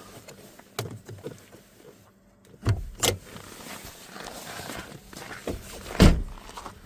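A few clunks and knocks as the hood of a 2014 Ford Fiesta is released and opened: latch and hood metal. The loudest thunk comes about six seconds in.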